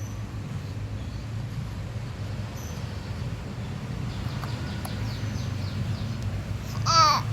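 A small child gives one brief, high-pitched vocal squeal near the end, over a steady low hum.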